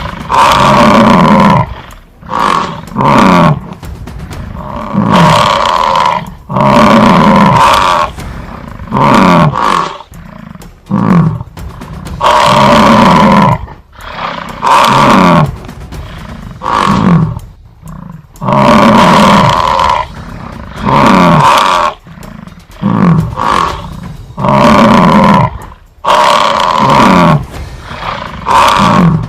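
A large animal's deep roaring calls, repeated about every two seconds. Each long call falls in pitch and is often followed by one or two shorter ones.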